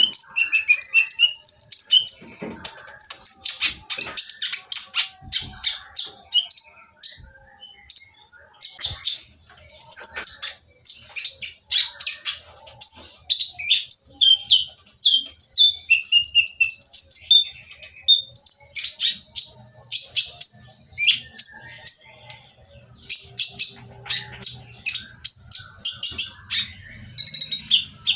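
A kolibri ninja (konin) sunbird singing a fast, harsh, busy twitter of high chirps and trills with barely a pause. This is the noisy song used to provoke other konin into answering.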